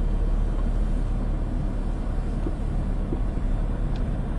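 Car driving through shallow floodwater, heard from inside the cabin: a steady low rumble of the car mixed with the wash of water under the wheels.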